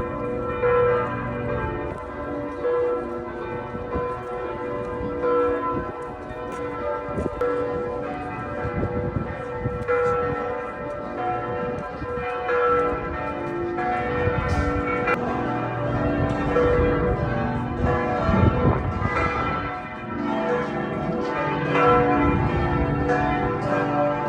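The bells of Vilnius Cathedral's bell tower ringing together: several bells struck over and over in an irregular, overlapping peal, each note ringing on under the next strikes.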